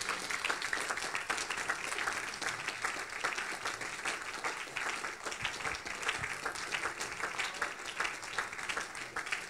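A congregation applauding: many hands clapping at once in a dense, continuous stream.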